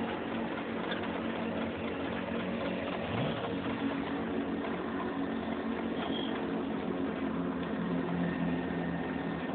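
Steady engine drone and road noise inside the cab of a truck moving down a canyon road, with a brief rise in engine pitch about three seconds in.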